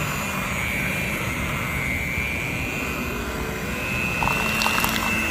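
Electric mixer running in cake batter, a steady motor whine that wavers slightly as the beaters work, with a few light clicks near the end.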